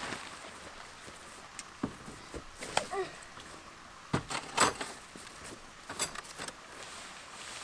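Scattered knocks, clicks and rustles of camping gear and a tarp being handled around a vehicle, with a brief squeak about three seconds in and the loudest clatter a little past four seconds.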